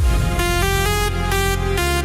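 Bass-boosted electronic dance music: a heavy sustained bass under a stepping synth melody.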